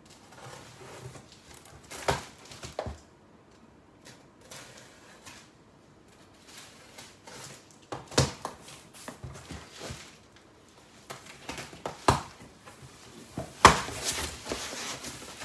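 Cardboard boxes being handled and rummaged through by hand: irregular rustling and scraping with several sharp knocks, the loudest near the end.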